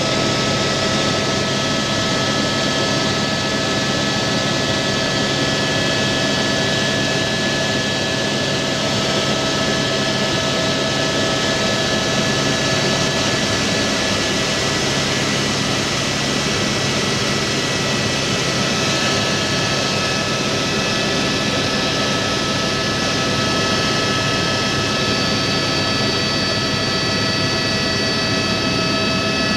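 Helicopter in steady flight heard from inside the cabin: a constant dense rush of engine and rotor noise with several steady high whining tones running through it.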